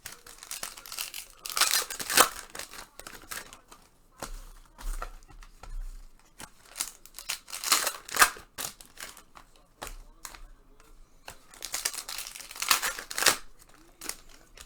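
2019-20 Panini Prizm Basketball retail card packs being torn open, their wrappers crinkling, with three louder bursts of tearing and rustling several seconds apart.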